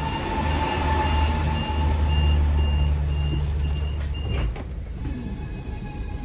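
Electric commuter train's door warning signal: a high beep repeating about two and a half times a second over a loud low hum, stopping about four and a half seconds in with a sharp thump.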